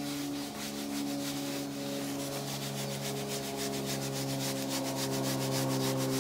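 Damp microfiber cloth rubbing over a leather car seat in quick, even circular strokes, buffing cleaner into the leather, over steady low tones.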